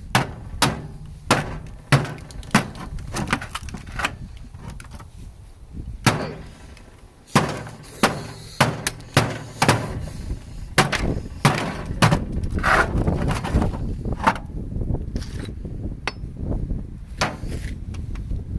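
A microwave oven being smashed: a long run of hard, irregular blows, about one or two a second with a short pause partway through, with glass and metal clinking and breaking.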